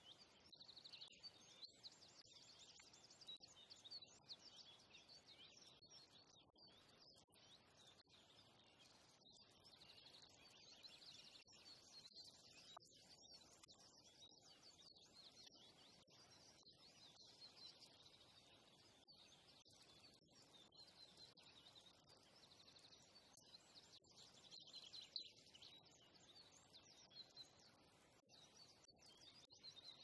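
Very quiet forest ambience with faint, high-pitched chirping of small birds that swells and fades.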